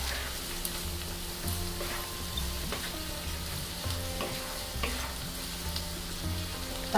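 Onion and tomato frying in butter in a pan: a steady sizzle, with a spatula stirring and now and then tapping against the pan.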